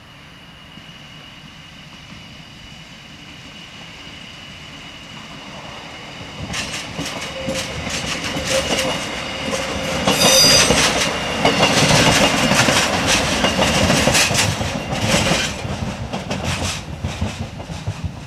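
Class 628 diesel railcar approaching and rattling over points and crossings, its wheels clattering over the many rail joints and frogs, with a brief wheel squeal midway before it fades away. The rattle is the clatter the uploader has long wondered about when these railcars cross points.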